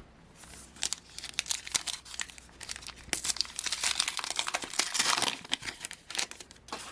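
Foil card-pack wrapper being crinkled and torn open by hand, a dense run of sharp crackling that is heaviest about halfway through.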